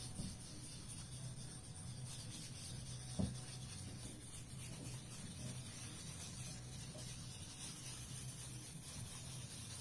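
Wooden rice-paddle spoon rubbing over proofing paper on an inked linoleum block, hand-burnishing a relief print; a faint, steady rubbing with one light knock about three seconds in.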